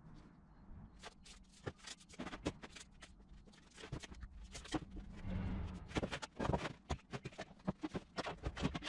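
Wooden boards and a metal saw guide rail being handled and set down: a quick, irregular run of knocks, taps and scrapes, busier and louder in the second half, with a short scraping stretch about five seconds in.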